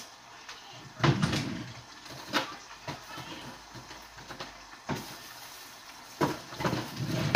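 Scattered knocks and clatter of a kitchen cupboard being opened and rummaged through, a few around a second in and in the middle, then a quicker cluster near the end ending in the loudest knock.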